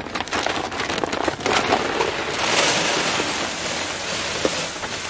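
Whole oats pouring from a feed bag into an empty plastic tote. Crackling rustle as the bag is tipped, then from about halfway through a steady rushing hiss like rain as the grain streams in.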